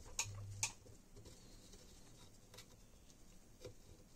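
Quiet soldering at an XT60 connector: two faint clicks with a brief low hum in the first second, then a few faint ticks as the iron tip is held against the terminal.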